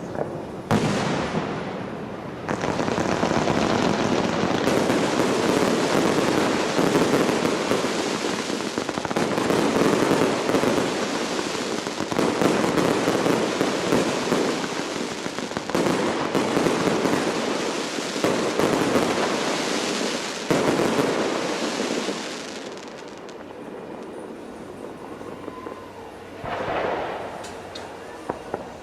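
Large fireworks display: a single bang about a second in, then a dense barrage of bursts and crackling that dies down about three-quarters of the way through, with one more short flurry near the end.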